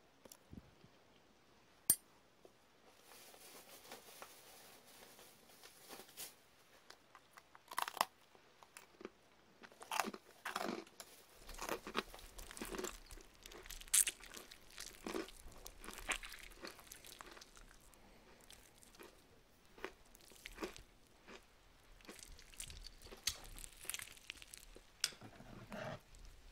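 Crisp food being bitten and chewed: a single sharp click about two seconds in, then an irregular run of crunches from about three seconds in.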